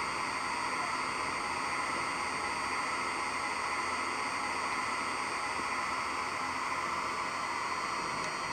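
A steady electrical hum with hiss that holds even throughout, with no separate knocks or clicks.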